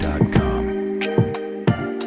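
Electronic background music: held synth chords over a steady drum beat.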